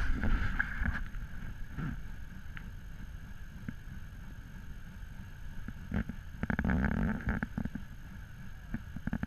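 ATV engines running, with a steady low rumble and wind buffeting the microphone. It is louder at the start and again about six and a half seconds in.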